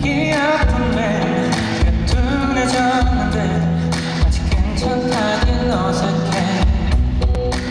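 Live pop music: a male singer's voice, wavering in pitch, over band accompaniment with sustained bass and drums.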